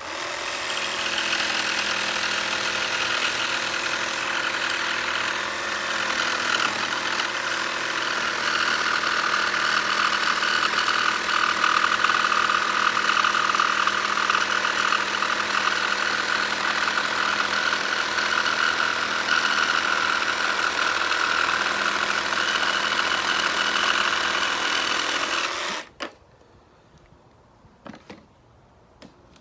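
Makita 12-volt cordless jigsaw running steadily as it makes a 45-degree bevel cut through thin stock. The saw stops suddenly near the end, followed by a few faint clicks.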